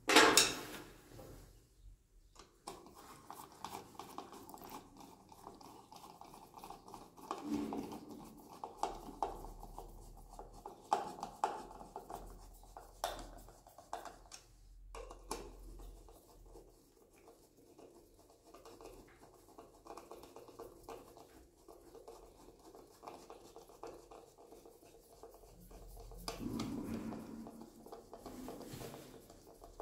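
Screwdriver scraping and clicking as it turns the fixing screws of a plastic wall outlet plate, with a sharp knock at the very start.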